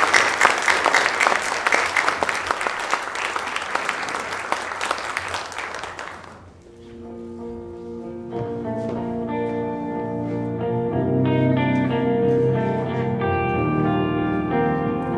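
Audience applauding in a large hall, fading out about six seconds in. Then the campaign video's soundtrack music begins, a melody of separate notes that fills out as it goes.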